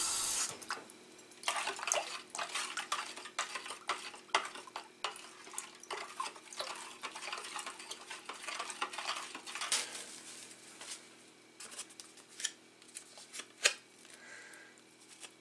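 A running tap shuts off at the start. A metal spoon then stirs salt into water in a plastic bowl, clinking and scraping against the bowl in quick irregular ticks. The stirring thins out after about ten seconds, leaving a few separate clicks near the end.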